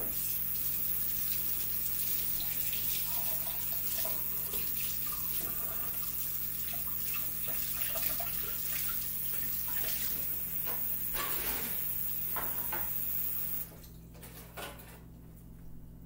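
Kitchen faucet running steadily into the sink while raw pork chops are rinsed under it; the tap is shut off about two seconds before the end.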